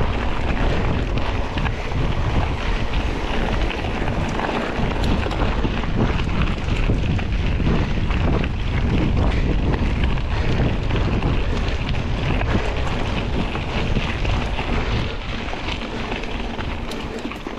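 Mountain bike rolling along a gravel track: steady wind noise buffeting the microphone, with a constant crunch and rattle of tyres over loose gravel.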